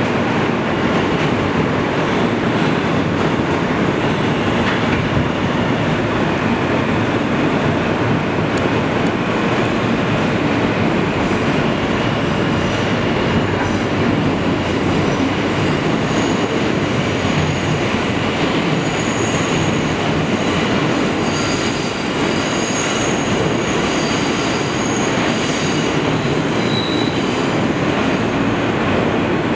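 Steady running noise heard from inside an R160 New York City subway car moving through a tunnel: wheels rolling on the rails under the car. From about halfway, high-pitched wheel squeal comes in and out over the roar, strongest near the end.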